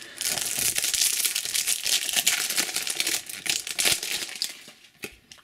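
Plastic wrapper of a trading-card booster pack being torn open and crinkled in the hands, a dense crackling that dies down about four seconds in, leaving a few faint clicks as the cards are handled.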